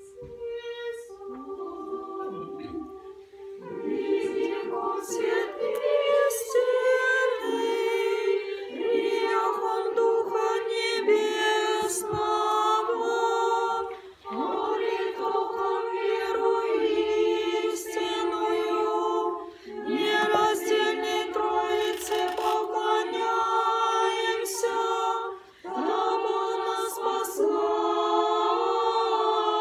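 Small choir singing Orthodox church chant a cappella in sustained phrases, with brief pauses for breath between them.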